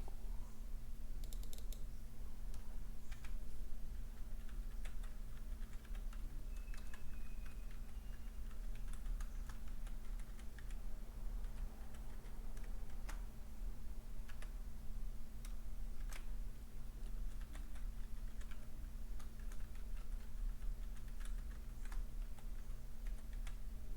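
Computer keyboard being typed at an irregular pace, separate key clicks scattered throughout, over a steady low hum.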